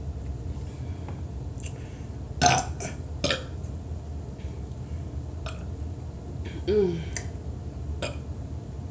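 A woman burping from a carbonated cola (Pepsi). There are two short, sharp burps about two and a half and three and a half seconds in, then a lower burp near seven seconds that drops in pitch.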